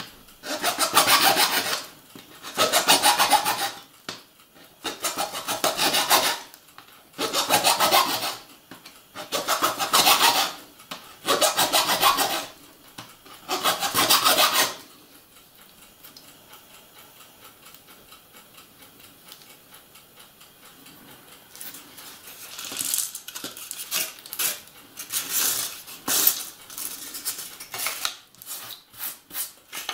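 A hand file rasping on a piece of H0 model railway track in long, even strokes, about one every two seconds. About halfway through the strokes stop, and near the end shorter, quicker strokes follow.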